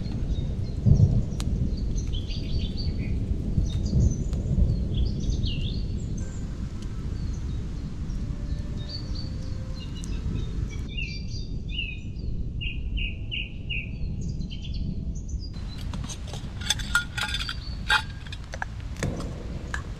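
Birds chirping over a steady low rumble, with a cluster of sharp clicks about three-quarters of the way through.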